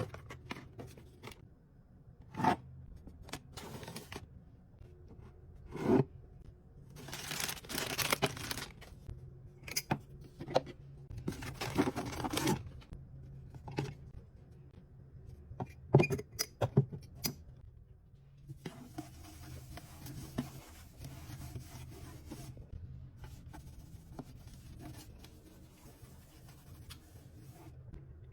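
Packaging and containers being handled: scattered knocks and clicks as items are picked up and set down, with two stretches of tearing or rustling packaging about seven and twelve seconds in.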